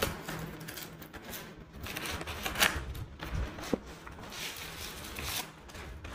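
Cardboard packaging rustling and scraping as a small mouse box is opened and its sleeve pulled off, with a few short ticks and taps of the box being handled.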